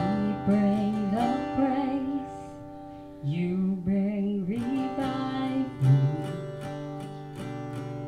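A woman singing into a microphone over a strummed acoustic guitar, both amplified through an Alto Professional Trouper portable PA speaker. The voice pauses for about a second a couple of seconds in and drops out again near the end, leaving the guitar strumming.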